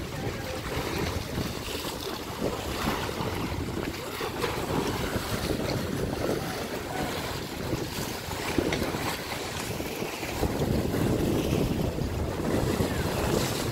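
Wind buffeting the microphone over the steady wash of river waves breaking against a muddy bank.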